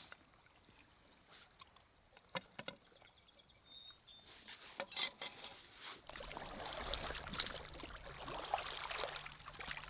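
A few faint clicks, and a quick run of sharp clicks about five seconds in. From about six seconds, lake water sloshing and trickling at the shoreline as a water bag is dipped in and filled.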